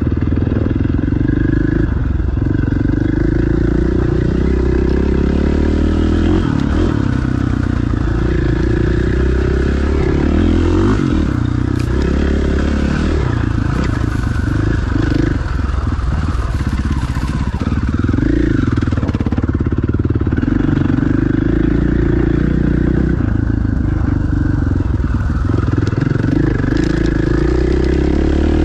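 Enduro dirt bike engine running as it is ridden off-road, revs dropping and picking back up several times as the rider eases off and opens the throttle. It is heard close up from the bike, with a few brief knocks as it rides over rough ground.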